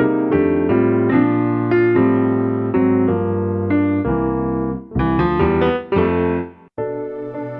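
Kurzweil PC4 keyboard playing a piano-type preset: chords struck about twice a second over held bass notes. Near the end the sound cuts out briefly and a different, softer sustained patch starts.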